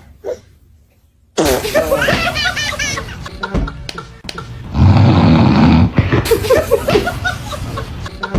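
Laughter and high squeals, then a loud, low, rasping snort lasting about a second, about five seconds in, followed by more laughter.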